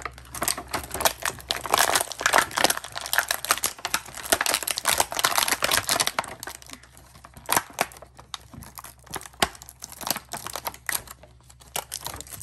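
Plastic toy packaging of a boxed action figure being crinkled and pulled apart: a dense run of crackles for the first half, then sparser crackles and clicks.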